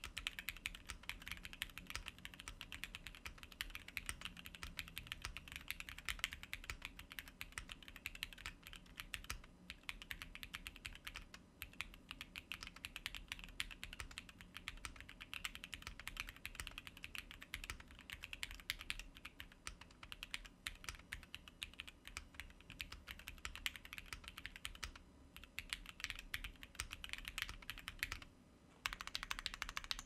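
Fast typing on a Noir Z2 gasket-mounted mechanical keyboard with SP-Star Yanyu switches, an FR4 plate and PBT keycaps: a rapid, continuous run of keystrokes with a few short pauses, the longest about a second near the end.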